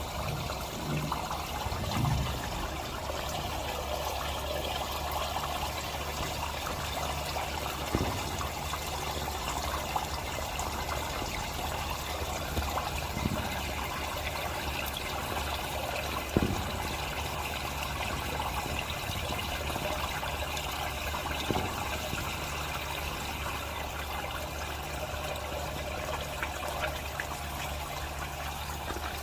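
Water running steadily through plumbing, with a steady low hum underneath and a few short knocks scattered through.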